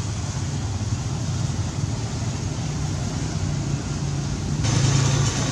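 Steady low outdoor rumble that grows brighter and a little louder about four and a half seconds in.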